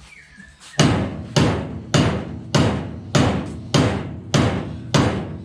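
Steady, heavy hammer blows on a stuck part of a car, about nine strikes at a little under two a second, each with a short ringing tail. They begin about a second in, after a brief lull. The blows are working a seized part loose; the steering box comes out soon after.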